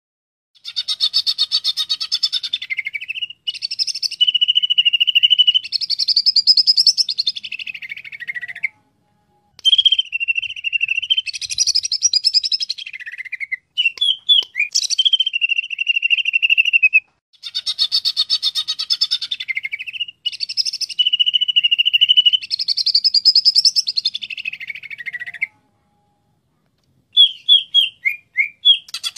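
Cucak ijo (green leafbird) singing: three long phrases of rapid trills mixed with clear whistled notes, each about eight seconds with short pauses between, the same phrase coming round again as in a looped recording, then a few short separate chirps near the end.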